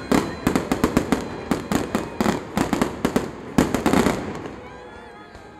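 Aerial fireworks bursting in quick succession: a dense run of sharp bangs, several a second, with one especially strong burst past the middle, then thinning out and fading over the last second or so.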